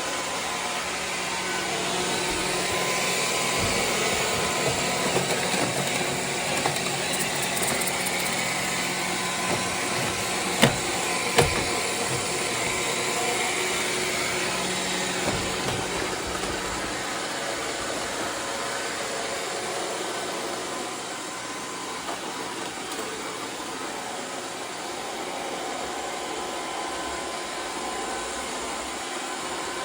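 iRobot Roomba 675 robot vacuum running steadily as it cleans, with two sharp knocks a little under a second apart about a third of the way through.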